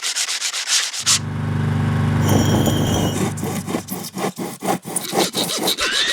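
Construction tool sounds in quick succession: about a second of fast, even rubbing strokes like sanding or filing, then a low hum with scraping, then irregular rasping strokes like sawing. Near the end a power tool spins up with a rising whine.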